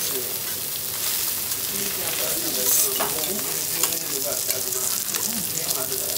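Wagyu sirloin steak sizzling steadily on a hot steel teppanyaki griddle, with a few sharp clinks of the chef's knife and spatula against the steel as the steak is cut, the loudest about four seconds in.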